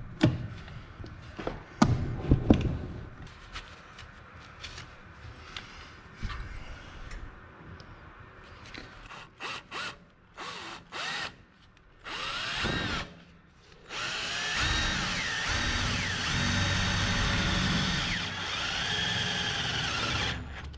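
Cordless drill boring a hole through the Jeep cab's sheet-metal rear wall: a few knocks at first, then short bursts of the drill starting and stopping, and about six seconds of steady drilling near the end.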